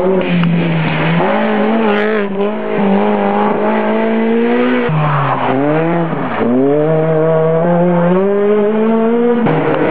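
Rally car engine revving hard. Its pitch climbs and drops repeatedly as the driver shifts gears and lifts off through the corner, with a deep dip and climb about halfway. Near the end the engine note cuts off and a rushing noise takes over.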